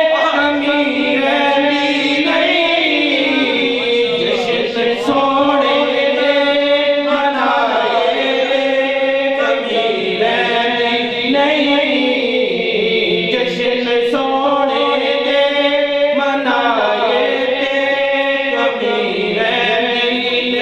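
A man singing a devotional song solo into a handheld microphone, in long held notes that glide up and down.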